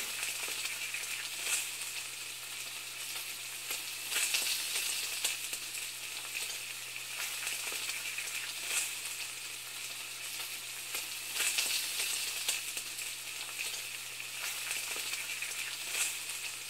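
Food sizzling in a frying pan: a steady hiss with scattered crackles and pops.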